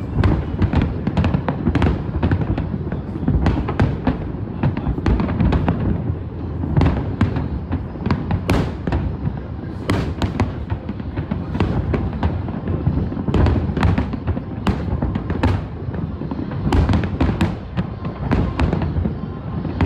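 A fireworks display with shells bursting in quick succession: a continuous low rumble of booms, broken by many sharp cracks.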